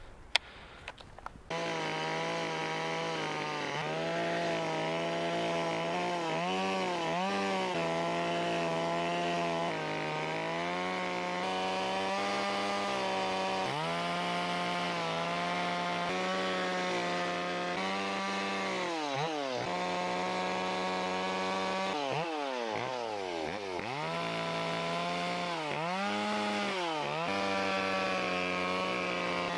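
Carving chainsaw running at high revs and cutting into wood, starting about a second and a half in. Its engine pitch dips and recovers again and again as the bar bites into the cut and is eased off, with deeper dips near the end.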